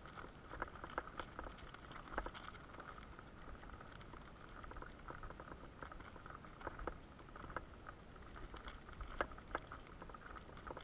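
Bicycle tyres rolling over loose gravel: a steady crunching hiss broken by many irregular sharp clicks and rattles from stones and the bike.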